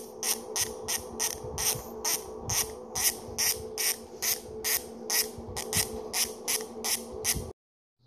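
Genova Maverick Big Dipper rear hub's six-pawl freehub ratcheting as the freehub body is turned back and forth by hand: short bursts of loud cricket-like clicking, about three a second, which cut off suddenly near the end.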